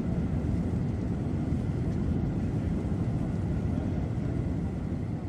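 Low, steady rumble of a Boeing 747 after its landing rollout, with no distinct tones or knocks, easing slightly near the end.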